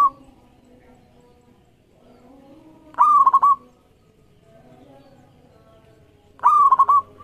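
Zebra dove (perkutut) singing its cooing song twice, about three and a half seconds apart. Each phrase is a rising note followed by a quick run of three or four short staccato notes.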